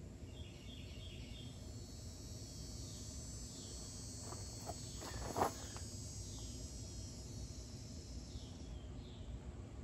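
Steady high chirring of insects under a faint outdoor background. A few short soft sounds break in near the middle, the loudest about five and a half seconds in.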